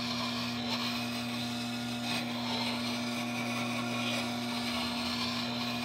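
Tormek T8 wet sharpening machine's motor running with a steady hum while a steel roughing gouge held in a jig grinds against its turning water-cooled stone, making a continuous scraping hiss over the hum.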